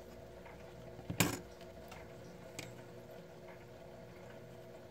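A sharp plastic click about a second in, with a fainter tick a little later, from a stitch marker being clipped into a crocheted piece; a faint steady hum underneath.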